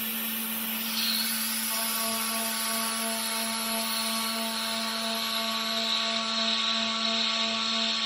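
CNC router spindle spinning a small thread mill, a steady hum with a hiss over it. About two seconds in, a set of higher tones joins and holds as the tool feeds down to mill a thread into the end of the aluminium plate.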